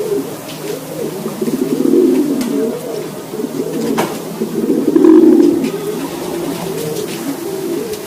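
Several domestic racing pigeons cooing, their low coos overlapping without pause. A single sharp click about four seconds in.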